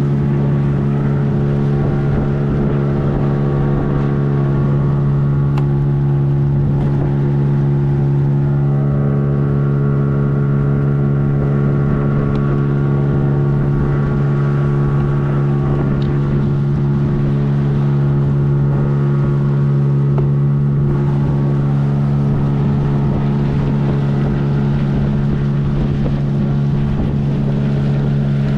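Boat motor running at a steady speed, a constant loud drone that holds the same pitch throughout.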